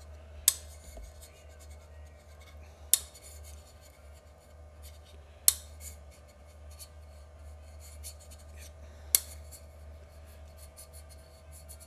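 A steel rod snapping onto and scraping across the permanent magnets of an Agni motor as it is worked around the magnet ring to test their strength: four sharp metallic clicks a few seconds apart, with light scratching and faint ticks between them.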